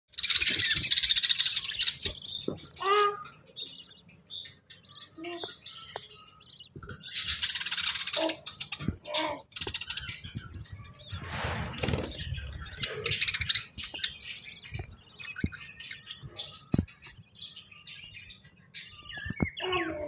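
Budgerigars in a nest pot calling: loud harsh, hissy bursts, the typical begging calls of budgie chicks, with shorter chirps in between and a few soft knocks.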